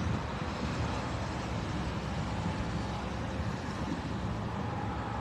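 Steady traffic noise by a highway: vehicle engines and tyres making an even low rumble.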